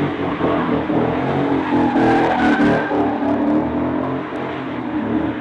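2015 Mustang GT's 5.0 V8 running hard through a Ford Racing X-pipe and Magnaflow Magnapack mufflers, loud and sustained, easing off near the end.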